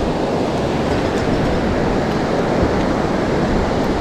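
Surf washing onto the beach: a steady rush of breaking waves.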